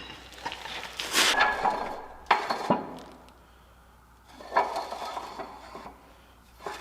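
Steel parts clinking and scraping as they are handled, with two sharp metallic knocks about two and a half seconds in.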